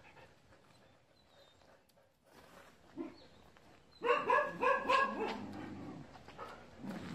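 A dog barking: a quick run of about four or five barks begins about four seconds in, after a quiet stretch.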